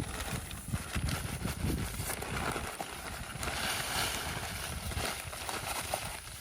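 Concrete mix being poured into a fence post hole: a steady gritty hiss that swells in the middle, with some low knocks.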